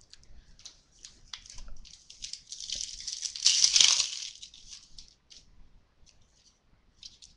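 Foil wrapper of a trading-card pack crinkling and tearing, loudest from about two and a half to four and a half seconds in, among light rustles and clicks of cards being handled.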